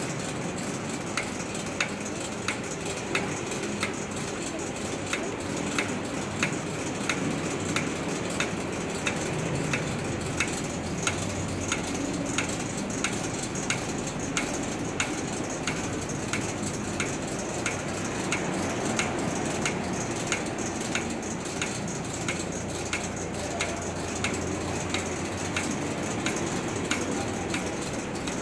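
Factory conveyor line running: a steady mechanical noise with a sharp, regular click about three times every two seconds.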